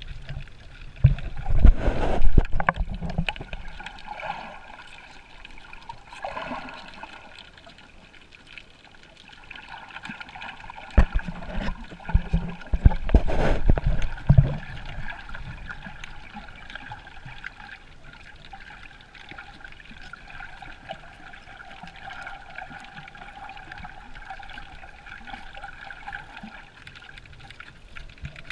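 Underwater sound picked up through a GoPro's waterproof housing: muffled water sloshing and gurgling against the camera, with two stretches of heavy low thumps, near the start and about halfway through. A faint steady hum runs under the second half.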